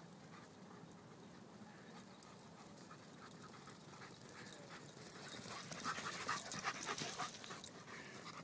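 Dog panting, faint at first and louder from about halfway through, a quick run of short breathy strokes.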